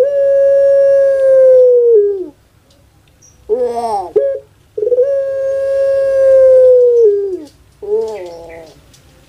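Puter pelung dove (a long-calling Barbary dove, Streptopelia risoria) calling. A long steady note falls away about two seconds in. After a pause, a second call of a few short wavering notes runs into a long held note of about two and a half seconds that drops at its end, then a shorter falling note.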